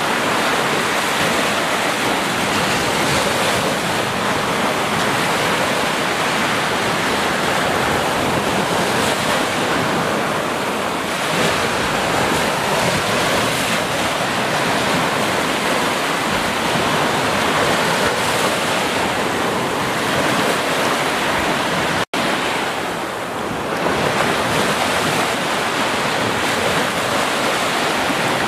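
Small waves breaking on a sandy beach and washing up as foam: a continuous rushing surf that swells and eases gently. About three-quarters of the way through, the sound drops out for a split second.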